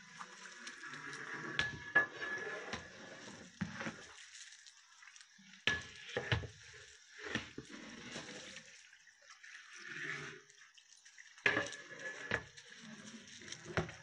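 A long-handled metal ladle stirs raw beef chunks through thick wet masala in a large metal cooking pot. The meat churns wetly, with irregular scrapes and knocks of the ladle against the pot.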